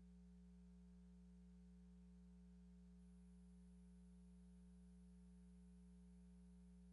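Near silence: a faint steady hum, with a faint high whine joining about three seconds in.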